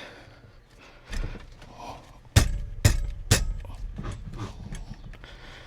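Three sharp knocks about half a second apart, with fainter handling noise, as parts are fitted back together on a car's steering column.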